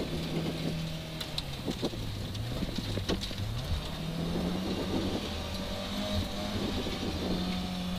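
Volvo 940 rally car's engine heard from inside the cabin, dropping in pitch as the car slows for a tight hairpin on gravel about two seconds in, then rising again as it accelerates out, over steady road noise with a few sharp knocks.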